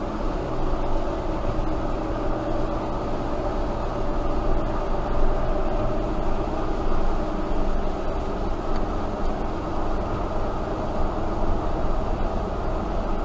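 Steady road and tyre rumble with engine hum inside a car cruising at about 45 mph on a wet highway, heard through the dash camera's microphone.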